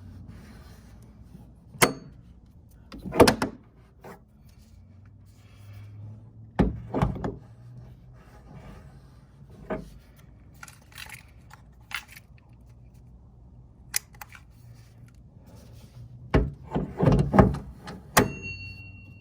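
Scattered metallic clicks, knocks and clatter of quick-release mount hardware being handled and fitted, with a quick run of knocks near the end and a short metallic ring right after them.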